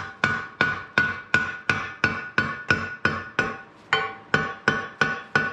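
Steady hammer blows on the steel of an old arbor press, about three a second with a short pause about three and a half seconds in, each blow ringing with a clear metallic tone, as a part is knocked out to take the press apart.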